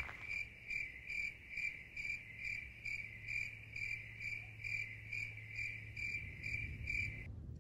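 A short, high, even-pitched chirp repeated steadily, roughly three times a second, cutting off abruptly near the end.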